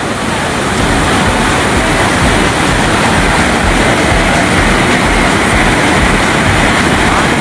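Waterfall pouring down in a loud, steady rush of water.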